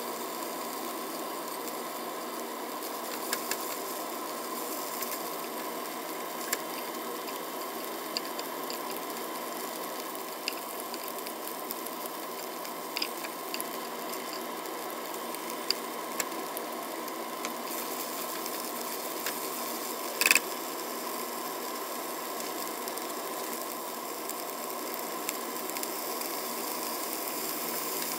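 Pork pieces and sliced green onion sizzling steadily in a nonstick frying pan, with scattered light clicks of utensils against the pan and one sharper clack about twenty seconds in.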